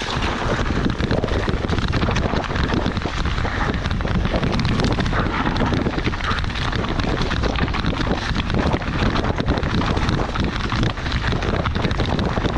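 Heavy wind buffeting on the microphone of a moving enduro motorcycle, with the bike's engine running underneath.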